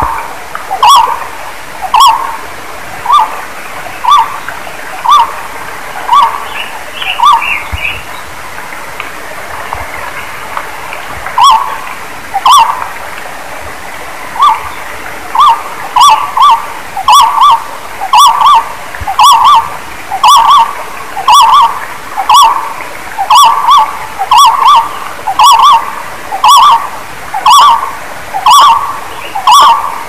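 A barbet calling: a loud call note repeated about once a second, which breaks off for a few seconds about a quarter of the way in and then comes back faster, often in pairs. A steady hiss runs behind the calls.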